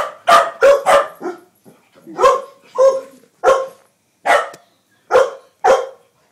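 A dog barking at a remote-control toy car it is chasing: about eleven sharp barks, five in quick succession in the first second and a half, then one every half second to second.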